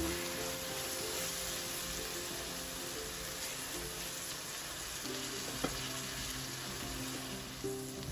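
Onion and spice masala, with ginger and garlic paste, sizzling as it fries in oil in an aluminium pan, stirred with a silicone spatula. A single short knock comes about five and a half seconds in.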